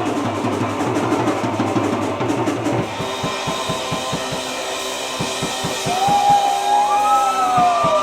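Live rock band playing, driven by a drum kit. About three seconds in the dense full-band sound thins to distinct drum hits under held chords. From about six seconds in, a lead guitar plays sustained notes that bend up and down in pitch.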